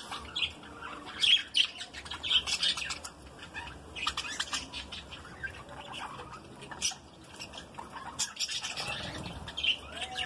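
A flock of budgerigars chattering: many short, overlapping chirps and squawks.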